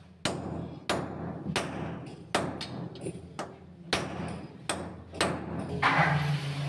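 Hand hammer striking metal at the foot of a core-drilling machine's stand, about eight sharp blows at a steady pace, fixing the stand to the concrete slab. A louder rustling noise follows near the end.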